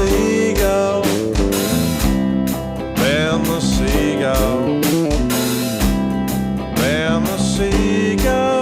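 Instrumental break of a blues-rock song: a lead guitar plays bending notes over bass and a steady drum beat.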